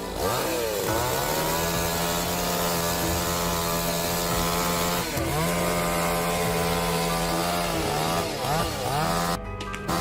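Two-stroke chainsaw running at high revs, its pitch dropping and climbing back up as the throttle is eased off and opened again shortly after the start, around five seconds in and twice more near the end.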